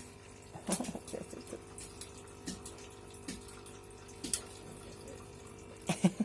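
A few light clicks and knocks from a wire cat cage as a cat moves into it, over a steady faint hum.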